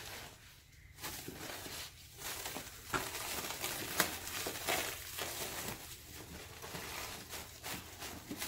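Plastic packing bags crinkling and rustling as they are pulled out of a cardboard box, with a few sharper crackles about three and four seconds in.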